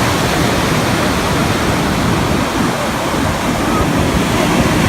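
Steady rush of ocean surf, with wind rumbling against the phone's microphone.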